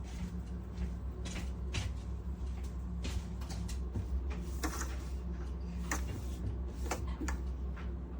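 Breville Bijou espresso machine running with a steady low hum, with scattered clicks and knocks, while it fails to deliver coffee, which the owner takes as a sign that something is wrong with it.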